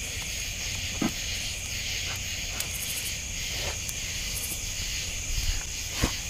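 Steady night chorus of crickets, with a few light knocks about a second in, near the middle and near the end.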